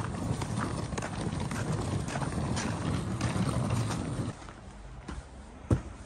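Wheels of a hard-shell suitcase rattling and grinding over packed, icy snow, with crunching footsteps. It stops about four seconds in, and a couple of sharp knocks follow near the end.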